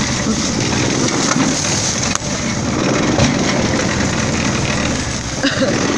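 Golf cart engine running as the cart pushes through woodland brush, crushing sticks and dry leaves under the tyres, with a sharp crack of a branch about two seconds in.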